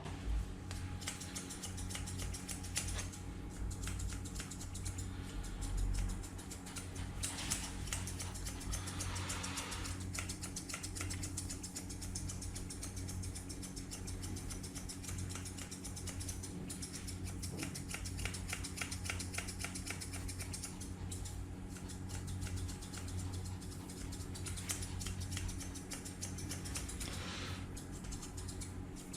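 Grooming scissors snipping a Pomeranian's fur: a long run of quick small clicks over a low steady hum.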